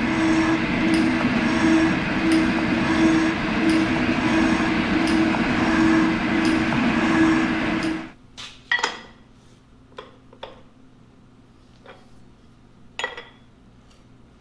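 Smith & Mills metal shaper taking its final cut on a cast iron straight edge: a steady machine drone with a sharp click at each ram stroke, about one a second. About eight seconds in it gives way to a few sharp metal clinks and knocks as the vise handle and workpiece are handled.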